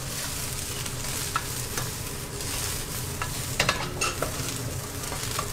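Curry leaves frying in hot oil in a wok over a steady sizzle, stirred with a metal ladle that clicks and scrapes against the pan now and then.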